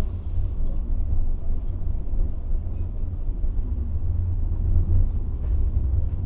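Steady low rumble of a passenger train, with a continuous noisy drone and no distinct events.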